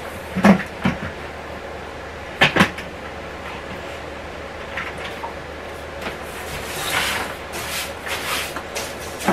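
A broom sweeping a hard floor. A few sharp knocks come in the first three seconds, then repeated brushing swishes of the bristles from about six seconds in.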